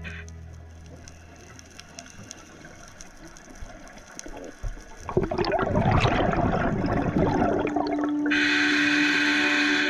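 A diver's exhaled bubbles from a scuba regulator, a loud rushing burst lasting about three seconds, starting about halfway through after a few seconds of faint underwater background. Background music stops at the start and comes back near the end.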